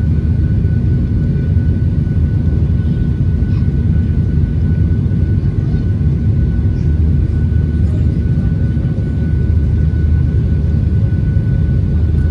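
Steady low rumble of a Boeing 737's jet engines heard from inside the cabin over the wing during the climb after takeoff, with a thin, steady high whine above it.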